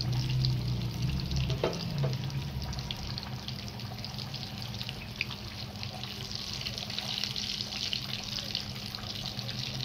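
Battered potato sandwich pieces shallow-frying in hot ghee, sizzling and crackling steadily as their second side cooks. A couple of light metal clicks from tongs against the pan come about two seconds in.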